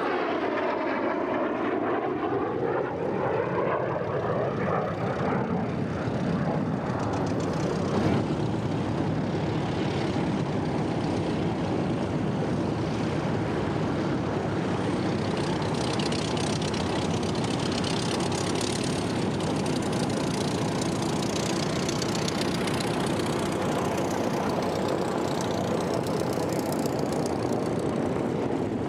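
Piston-engined propeller aircraft flying past, their engine pitch falling over the first couple of seconds as they go by, then a steady engine drone that carries on throughout.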